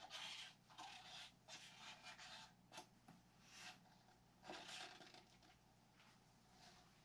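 Faint, irregular scraping strokes of a hand tool working freshly poured epoxy resin, about eight strokes in the first five seconds, then quieter.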